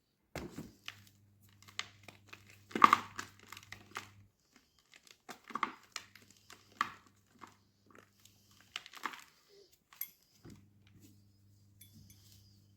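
Gym chalk being crushed: a series of crisp crunches, the loudest about three seconds in.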